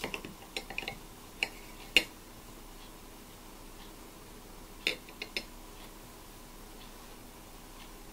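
Kitchen knife blade clinking against a ceramic plate as it cuts through a soft chocolate cheesecake and pushes the slice aside: a few light clicks at the start, a sharper clink about two seconds in, and three more clicks around the middle.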